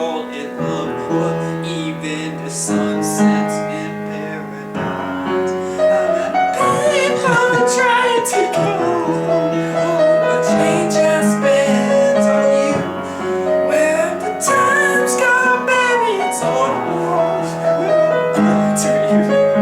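Piano chords playing a slow accompaniment, with a singing voice joining about six seconds in and carrying the melody over the piano.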